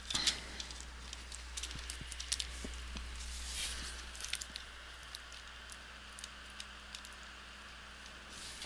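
Gloved hands handling a laptop LCD panel and its plastic lid cover: a quick run of small clicks at the start, scattered light ticks, and a brief rubbing swish about three and a half seconds in.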